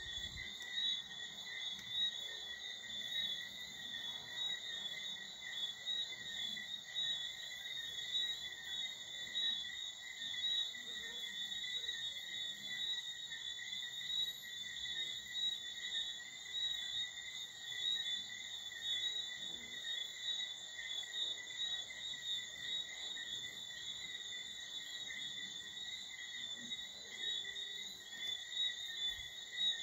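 Steady night chorus of calling animals: continuous high-pitched trilling at several pitches at once.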